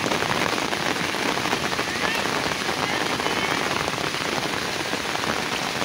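Heavy rain falling steadily onto a flooded street, a dense, even hiss of drops on the water.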